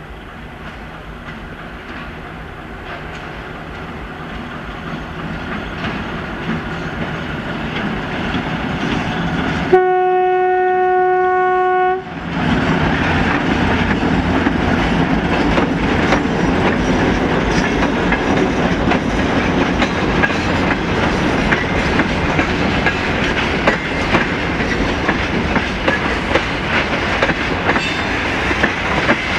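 TEM2UM diesel shunting locomotive pulling a freight train away, its engine and wheels growing steadily louder as it approaches. About ten seconds in comes one long horn blast lasting about two seconds, then the train rolls past, wheels clacking over the rail joints.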